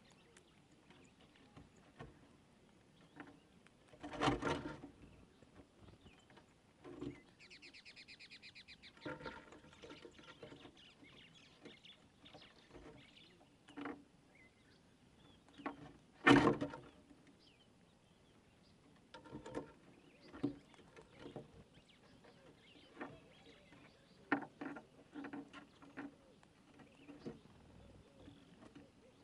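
Squirrel feeding on a wooden board: scattered small clicks and crunches of gnawing and handling food, with two sharp louder knocks, one about four seconds in and one about sixteen seconds in. A brief buzzing trill sounds around eight seconds in.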